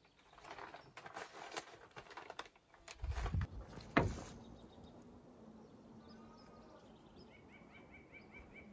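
Faint clicking and rustling, then a low thump about three seconds in and a sharper knock about four seconds in, followed by faint bird chirps.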